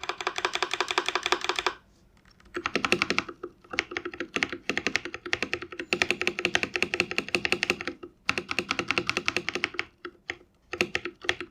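Fast typing on a GAMAKAY LK67 mechanical keyboard fitted with Akko Lavender Purple tactile switches: rapid runs of keystrokes, broken by short pauses about two seconds in and twice near the end.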